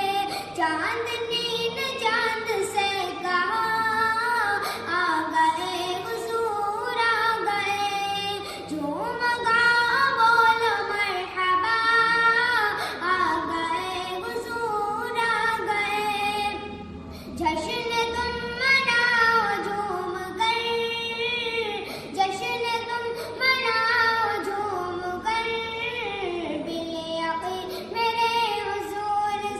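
A naat, an Islamic devotional song, sung by a single high voice in gliding, ornamented phrases.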